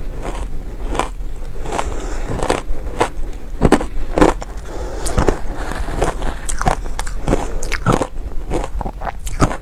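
Close-up crunching of powdery shaved ice being bitten and chewed, a dense run of sharp, irregular crackling clicks, with a metal spoon scooping ice in a plastic cup.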